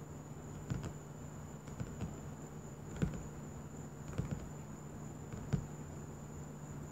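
Fingers tapping on the cover of a paper dot-to-dot book: scattered soft taps, about one a second, sometimes two close together. A steady faint high-pitched whine and low hum run underneath.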